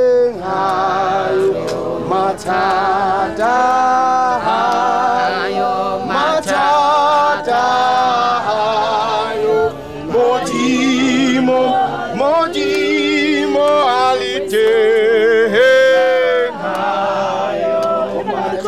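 A song with singing voices holding long notes with vibrato.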